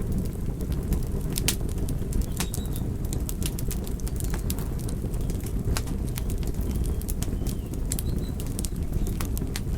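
Wood fire burning in a fireplace: a steady low rumble of flames with irregular sharp crackles and pops from the logs, a dozen or more scattered through the stretch.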